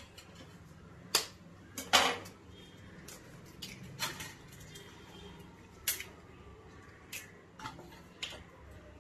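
Eggs tapped and cracked against a stainless steel mixing bowl: a scattered series of short, sharp taps and clinks on the metal, the loudest about two seconds in.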